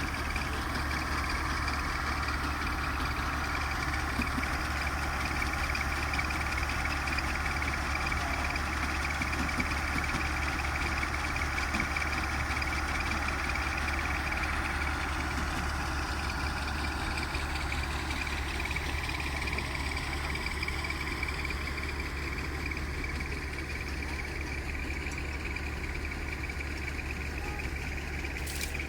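Engine of farm harvesting machinery running steadily at a constant speed, with a brief click near the end.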